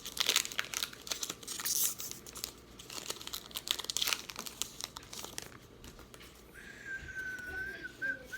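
Trading-card pack wrapper being torn open and crinkled by hand, a dense run of crackling through the first half. Near the end a thin, high, steady tone sounds.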